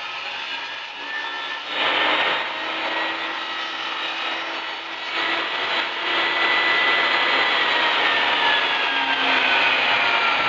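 A woodworking power tool running against pine board: a steady, noisy rasp with a faint motor whine. It grows louder about two seconds in and again about halfway, and the whine sinks slowly near the end.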